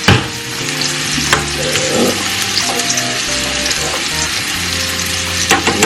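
Steady sizzling hiss of food cooking on the stove, with a pot of broccoli at a boil. There is a sharp click just at the start and another about a second and a half in.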